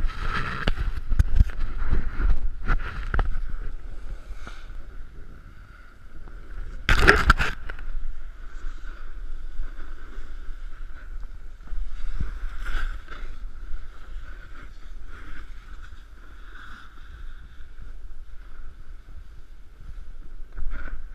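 Snowboard sliding and scraping over packed piste snow, with wind rumbling across an action-camera microphone; a louder scrape about seven seconds in.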